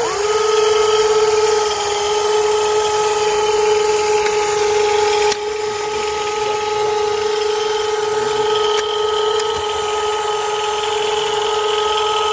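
Steady whine of the electric motor in a WLtoys 16800 metal RC excavator, holding one even pitch after a brief dip right at the start. It drops a little in loudness about five seconds in.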